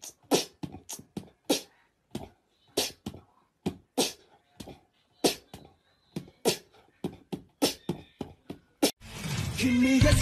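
A string of short, sharp clicks and pops at an uneven pace, about three a second, with quiet between them. Music starts about nine seconds in.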